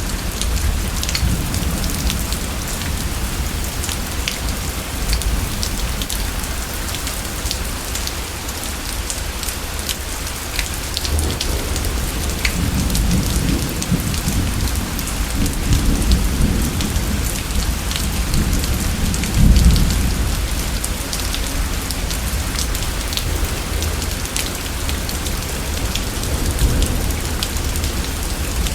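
Steady rain with many separate drops falling, and thunder rumbling low through the middle, loudest about two-thirds of the way through.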